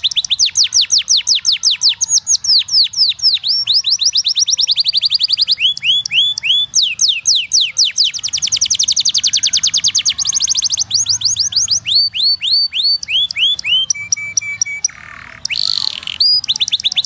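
Domestic canary singing a long run of trills: fast, high, falling notes repeated many times a second, the song switching to a new pitch and speed every second or two. Near the end come a short steady whistle and a brief harsh note.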